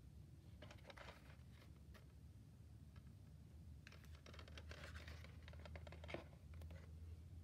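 Faint scratching and clicking of a plastic DVD case being handled and turned over, in two short bouts, over a low steady hum.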